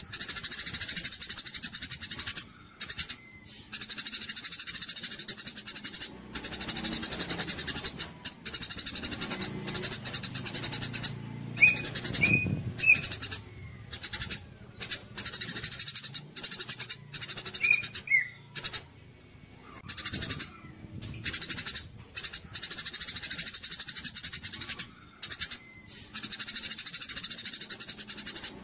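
Small songbird singing rapid, high-pitched trills in phrases a few seconds long, broken by short pauses, with a few brief lower chirps around the middle.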